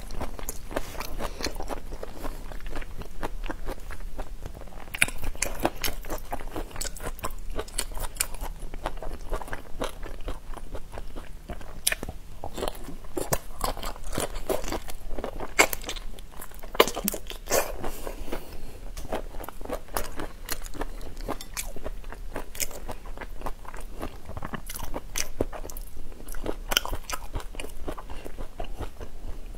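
Close-miked biting and chewing of whole shell-on shrimp in chili sauce, a dense, irregular run of crunches and crackles as the shells break between the teeth.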